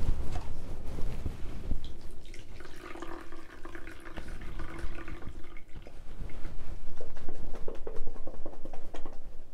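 Human stomach and intestines gurgling during digestion, heard close up: liquid bubbling over a low rumble, with a drawn-out pitched growl in the middle and a second, higher one near the end.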